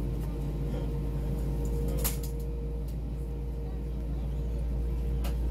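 Airbus A320-232's IAE V2500 jet engines at idle heard inside the cabin while the aircraft taxis: a steady low rumble with a faint tone that drops out about three seconds in. A sharp click comes about two seconds in.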